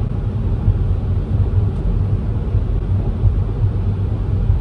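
Steady low rumble of a car heard from inside the cabin: engine and vehicle noise.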